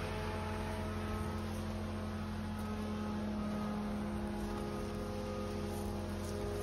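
Septic-tank emptying vacuum tanker's engine and pump running steadily: a constant drone with a few held tones and no change in pitch.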